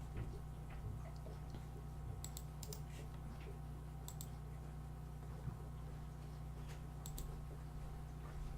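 Scattered sharp computer clicks, several in quick pairs, over a steady low hum.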